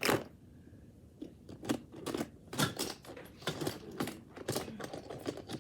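Fidget toys being handled and set down: a sharp knock, then a run of irregular clicks and taps.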